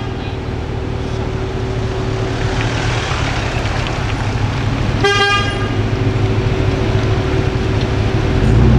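Car engine running low and steady, growing louder near the end, with one short car-horn toot about five seconds in.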